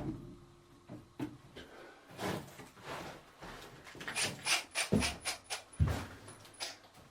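Tools and hardware being handled during building work: a quick run of sharp clicks and knocks with brief high squeaks, and two dull thumps about five and six seconds in.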